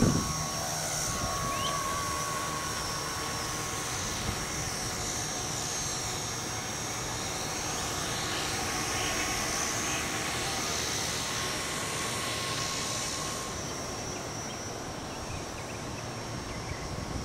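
Radio-controlled tricopter in flight, its three electric motors and propellers giving a steady whine whose pitch wavers a little as it manoeuvres. Wind rumbles on the microphone underneath.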